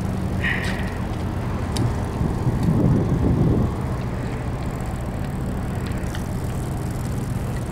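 Bicycles being ridden over a paved quay: a steady low rumble of rolling with a few faint clicks, swelling louder about three seconds in.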